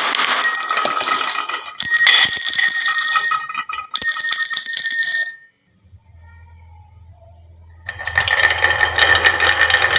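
Marbles clattering down a wooden marble run, with bright bell-like ringing in three bursts over the first five and a half seconds. After a pause of about two seconds with only a low hum, dense rapid rattling of many marbles starts about eight seconds in.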